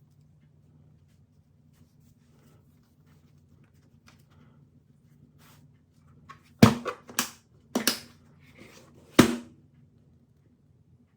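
Handling noises: four sharp clicks and knocks over about three seconds in the second half, over a faint steady hum.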